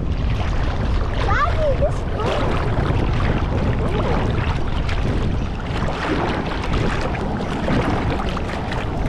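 Shallow seawater sloshing and lapping around a waterproof action camera held at the surface, over a steady rumble of wind on the microphone.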